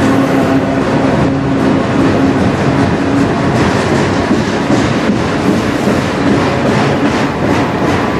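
Freight cars of a CN manifest train, mostly autoracks, rolling steadily past at close range: a continuous rumble of steel wheels on rail with a low hum and repeated clicks as the wheel sets cross the rail joints.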